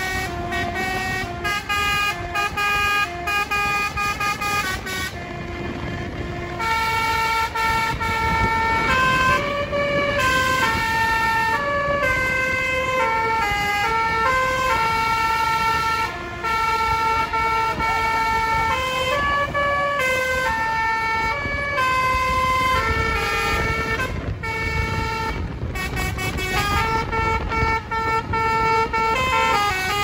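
A bus's basuri telolet horn with roof-mounted trumpets, playing a tune in loud, held notes that step up and down, over the low noise of the bus running.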